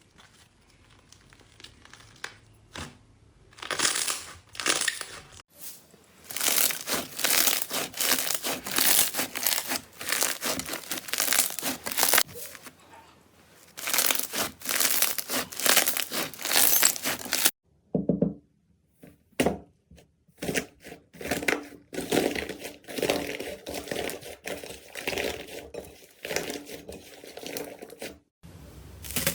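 Slime being squeezed, stretched and pressed by hand, making dense crackling, crinkling and popping sounds in bursts, with a couple of brief pauses midway.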